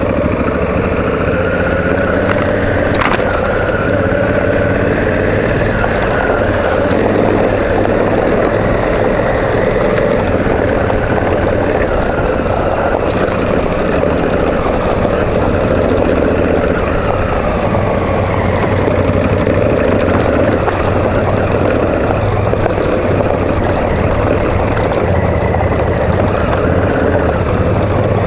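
Honda Africa Twin CRF1000's 998 cc parallel-twin engine running steadily at low trail speed on a dirt track, its pitch drifting slowly, with a few brief clicks.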